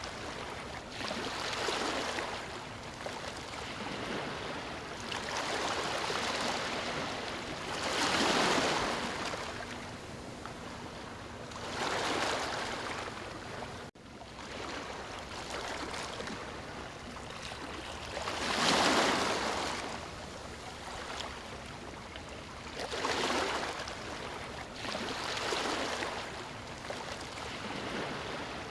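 Ocean surf: waves breaking and washing up the shore, each one swelling and fading every few seconds. The sound drops out for a moment about halfway through.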